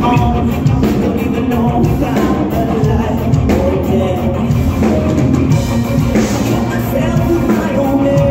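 Live rock band playing loud: electric guitars, bass and a drum kit, with a woman singing into a microphone, recorded on a phone from the audience.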